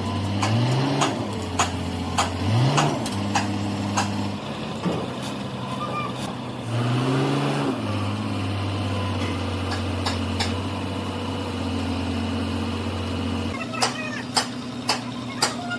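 A motor running steadily, its pitch rising briefly three or four times in the first eight seconds and dropping lower about thirteen seconds in, with sharp metallic knocks throughout that come about twice a second near the end.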